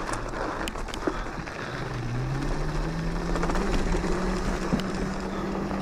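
A 72-volt, 5000-watt electric pit bike's motor whining as it pulls away on snow, its pitch rising over a couple of seconds and then holding steady, over a steady rushing noise.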